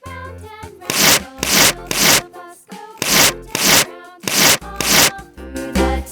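Repeated rasping scraping strokes, mostly in pairs about half a second apart, over background music.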